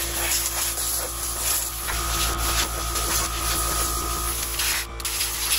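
Compressed air blowing from an air-hose nozzle, a steady hiss as dust is blown off an old snowmobile.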